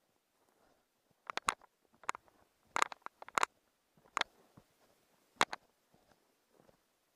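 Dry, woody scrub scraping and crackling against a person pushing through it on foot. There are about half a dozen sharp, irregular crackles, grouped at intervals of roughly a second, with quiet between them.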